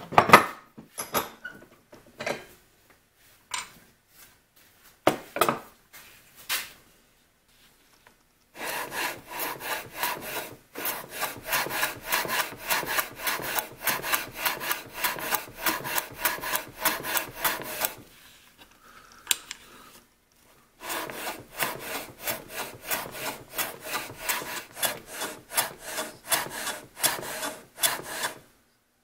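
Hand plane run on its side along a shooting board, shaving the ends of small hardwood pieces in quick, even back-and-forth strokes of about three a second. The strokes come in two long runs with a short pause between them. A few scattered knocks come first, as the jig and pieces are set on the bench.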